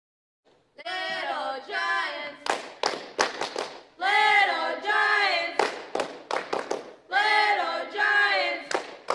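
Group of cheerleaders chanting a timeout cheer in unison, starting under a second in, with sharp hits between the chanted phrases.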